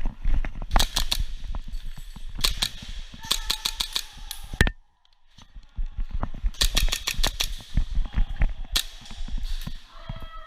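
Airsoft guns firing in quick strings of sharp cracks, several clusters a second or two apart, with a short pause about five seconds in.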